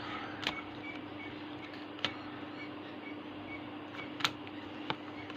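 Trading cards being handled and set down: a few sharp clicks and taps, about four, with the loudest a little after four seconds in, over a steady low hum.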